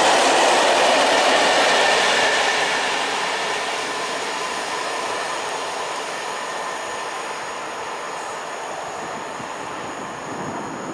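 Loaded open coal wagons of a freight train roll past close by, their wheels running on the rails. About three seconds in, the last wagon passes and the noise fades as the train draws away.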